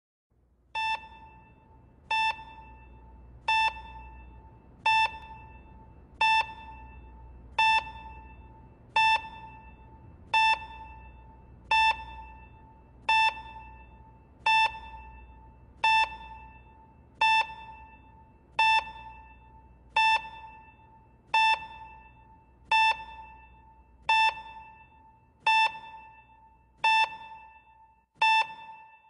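Hospital bedside patient monitor sounding its pulse beep: a single short high tone a little under every one and a half seconds, in step with a slow, steady heartbeat, over a faint low hum.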